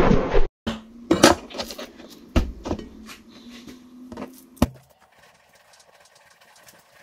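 Chef's knife scoring raw beef on a plastic cutting board: a string of sharp knocks and taps as the blade strikes the board, the last of them about four and a half seconds in. A brief whoosh comes at the very start.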